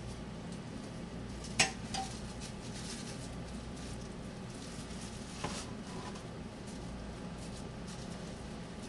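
Kitchenware clinking twice over a steady low hum. The louder knock, about one and a half seconds in, has a brief ring; a softer one comes about five and a half seconds in.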